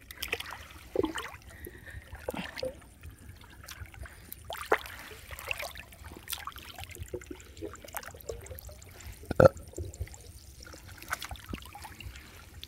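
Water trickling and splashing as a person wades chest-deep and pulls a gill net up out of the water by hand. Scattered small splashes and drips, the sharpest about nine seconds in.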